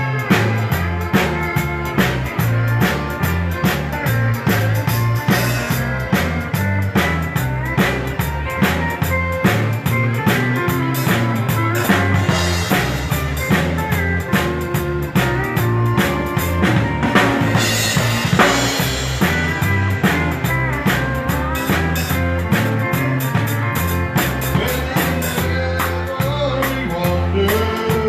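Live band playing a country dance tune, the drum kit keeping a steady beat over a walking bass line.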